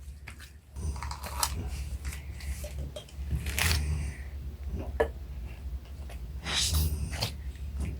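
A sleeping man snoring: long, low, rattling breaths that swell several times, with small clicks and rustles in between.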